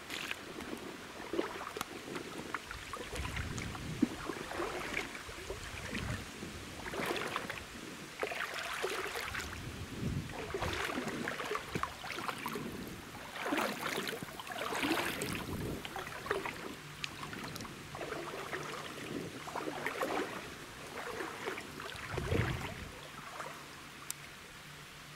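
Footsteps wading through a shallow creek in rubber boots, each step a swishing splash about every one and a half to two seconds. The steps stop near the end.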